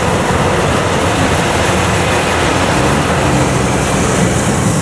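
Kubota rice combine harvester's diesel engine running steadily, a loud even drone with no change in speed.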